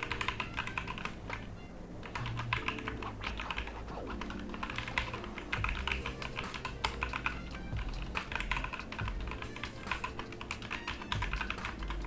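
Fast typing on a Digital Alliance Meca Air mechanical keyboard with red linear switches: a dense run of key clacks with brief lulls, over quiet background music.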